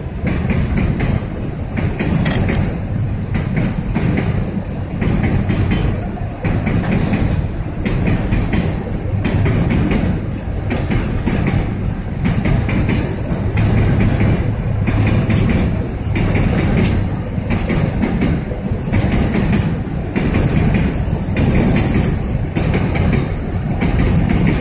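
Heavy diesel engines of mobile cranes running under load, a steady low rumble with a fast rattle over it.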